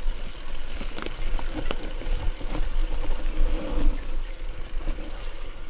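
Mountain bike riding fast down a dirt forest trail: tyres rolling over loose dirt and the bike rattling over bumps, with wind buffeting the microphone. A couple of sharp knocks about one and nearly two seconds in.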